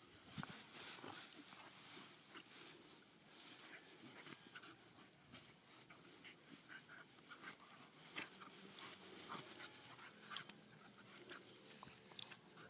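Two puppies play-fighting in grass, heard faintly: soft scuffling and rustling with short clicks that grow sharper and more frequent near the end.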